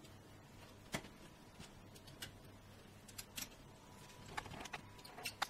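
Faint clicks and taps of small bolts being pushed into the holes of a plexiglass disc: one sharp click about a second in, then a cluster of quick clicks in the last two and a half seconds.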